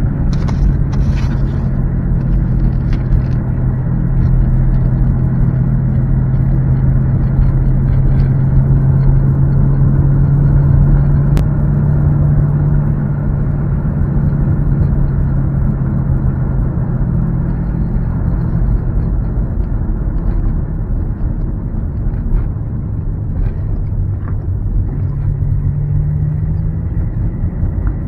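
Boat motor running steadily at speed, with a constant low engine note under a rumbling rush of wind and water. The engine note shifts briefly near the end.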